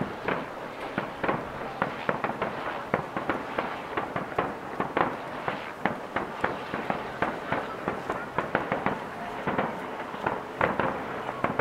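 Aerial firework shells bursting one after another in a rapid, uneven run of sharp bangs, several a second.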